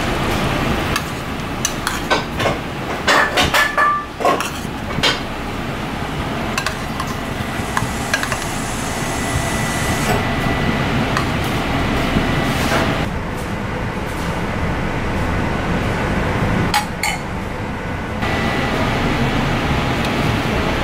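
Metal spoon clinking and tapping against a ceramic plate and metal bowl, several quick sharp clinks, some briefly ringing, in the first few seconds and a couple more near the end, over a steady background hum.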